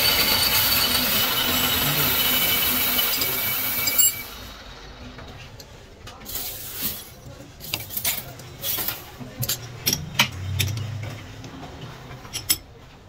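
Metal lathe cutting a high-strength steel gear blank: a loud, steady hiss with a high ringing note from the tool in the cut, stopping abruptly about four seconds in. After that come scattered metallic clinks and knocks of steel chips and parts being handled.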